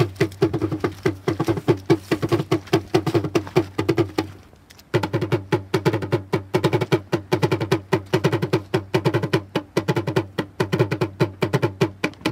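Rapid, even ratchet clicking, about six clicks a second, pausing briefly about four seconds in and stopping abruptly at the end: a casket lowering device being wound.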